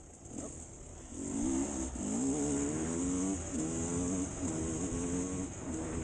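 Enduro motorcycle engine under way on a dirt track, picking up about a second in and then rising and dropping back in pitch several times as the rider works the throttle.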